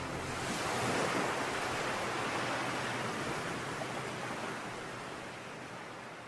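Sea surf washing on a beach, a steady hiss of waves that slowly fades out.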